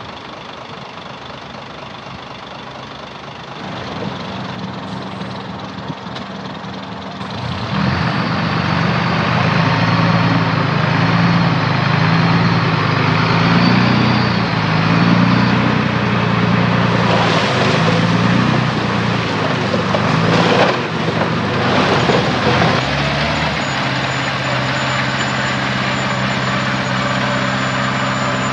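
Heavy diesel engine of earthmoving machinery working under load, its pitch rising and falling. A rush of noise comes a little past the middle, then the engine settles to a steady idle.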